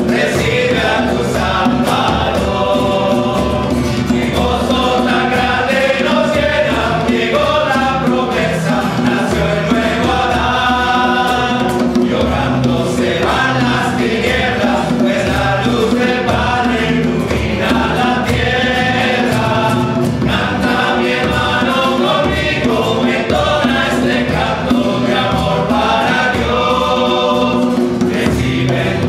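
A small group of men singing a Spanish Christmas carol together, accompanied by hand drums: a djembe and a cajón.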